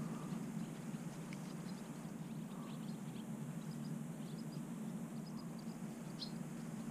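Small birds chirping in short, high notes, scattered through and coming more often near the end, over a steady low rumble.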